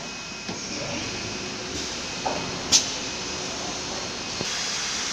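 Steady running noise of a CNC panel router line, with one short sharp burst of hissing air about two and a half seconds in from its pneumatic cylinders, and a louder steady hiss setting in near the end.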